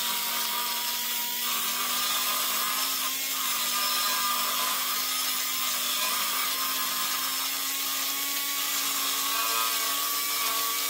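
Pneumatic air cutter (die grinder) with a cutting bit running at a steady high-pitched whine while it shaves aluminium off an intake manifold flange, with a grinding, scratchy cutting noise over it. The flange is being thinned to match the thickness of the exhaust manifold flange so the shared gasket seals without leaking.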